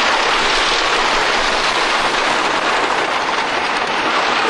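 Wooden roller coaster train running at speed along the Lightning Racer's wooden track: a loud, steady running noise of the train on the structure.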